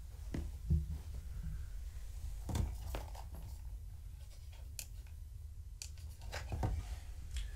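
Scattered small clicks and rustles over a steady low hum.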